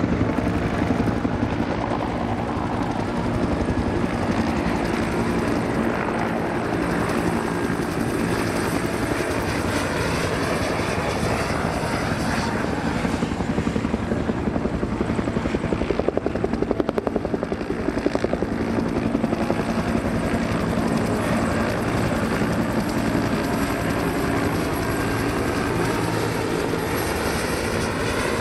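Several military helicopters flying in formation, a steady mix of rotor beat and turbine noise. Some pitches glide as they pass, and the sound swells slightly past the middle.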